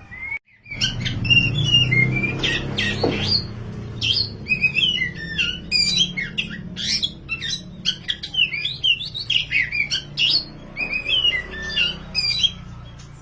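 Black Oriental magpie-robin (kacer) singing in full, a rapid, varied stream of whistled notes, slurs and harsh squawks with short pauses, over a steady low hum.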